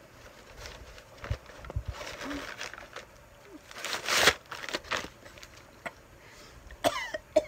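Paper bag rustling and crinkling as it is handled, with scattered small knocks and one short, loud burst of noise about four seconds in.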